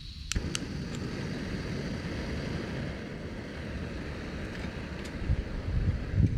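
MSR Pocket Rocket 2 canister gas stove lit with a couple of clicks about a third of a second in, its burner catching and then running steadily. Low knocks near the end as a titanium pot is set on the burner.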